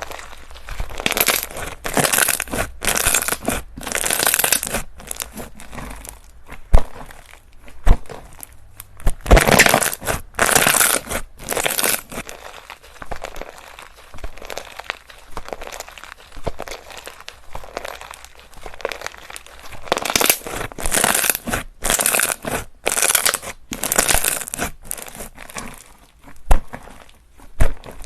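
Slime being squeezed and pressed by hand, making crinkly, crackling squishes in repeated bursts of about one or two a second. The bursts come in runs with quieter stretches between, and there are a couple of sharp clicks in the first third.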